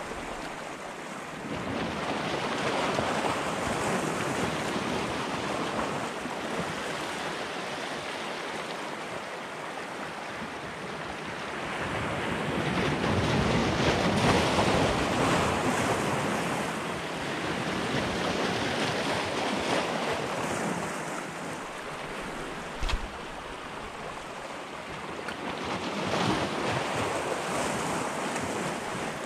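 Small sea waves washing in over shoreline rocks, swelling and ebbing every several seconds, with wind buffeting the microphone. A single short knock comes about two-thirds of the way through.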